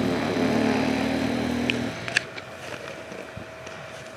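Dirt bike engine running at a steady idle, then cutting out abruptly about two seconds in, with a couple of light clicks around the cut-off.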